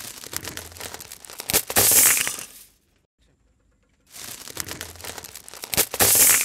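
Bundle of bamboo barbecue skewers cracking and splintering under a car tyre, twice: each time a run of crackles grows over about two seconds into a loud spell of snapping, then stops.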